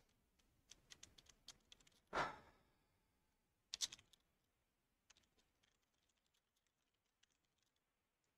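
Quiet typing on a computer keyboard: scattered keystrokes, with a short exhale about two seconds in and a louder cluster of key presses near four seconds.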